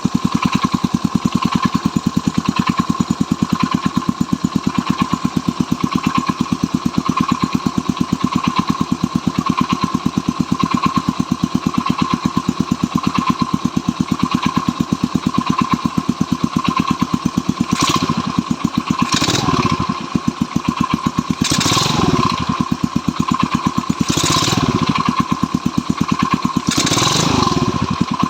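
Stels Kapitan motorcycle engine idling with a steady knock that the owner suspects is the chain. In the second half the throttle is blipped briefly about five times.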